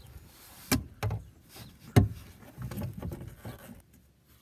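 Steel bottle jack being set onto its mounting prongs under a truck's rear seat: a few hard knocks, the loudest about two seconds in, then a short stretch of scraping as it is worked into place.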